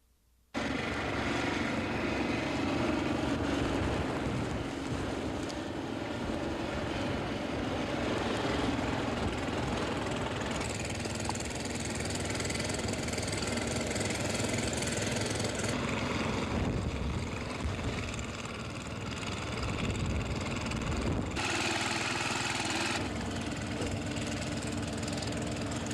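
A motor engine running steadily, cutting in suddenly about half a second in and shifting in character abruptly several times.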